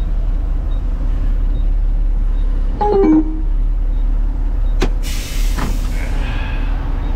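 Front-load garbage truck's diesel engine running steadily, heard from the cab. About three seconds in a short squeak, then near five seconds a click followed by a burst of air hiss from the air brakes.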